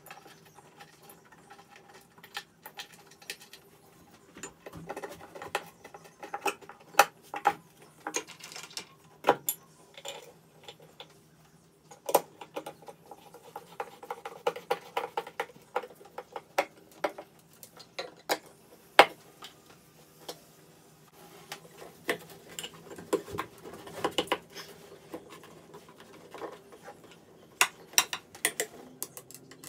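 Hand screwdriver work on a fuel water separator head: irregular clicks, scrapes and small rattles of the screwdriver and the metal fittings being handled, over a faint steady hum.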